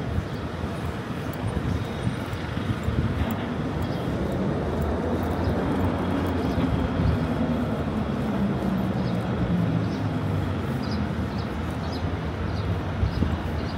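Steady low rumble of city street traffic, swelling a little around the middle.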